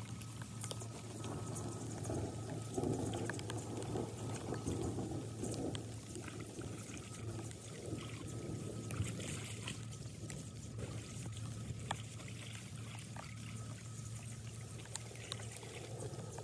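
Floodwater trickling and pouring into a blocked street storm drain, with splashing as gloved hands work in the water at the drain, busiest in the first few seconds.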